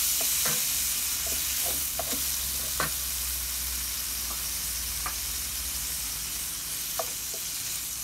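Sliced mushrooms and chopped leeks sizzling steadily in oil in a copper frying pan, stirred with a wooden spoon that scrapes and taps against the pan every second or so.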